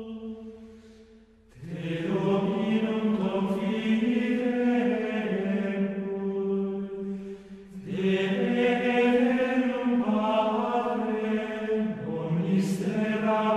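Background music of chanted singing in long held notes, with new phrases entering about a second and a half in, near eight seconds and near twelve seconds.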